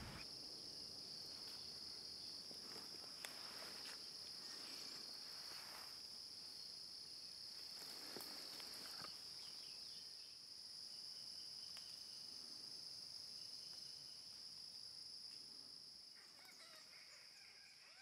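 Faint outdoor nature ambience: a steady, high-pitched insect chorus, with faint bird calls near the end as it fades out.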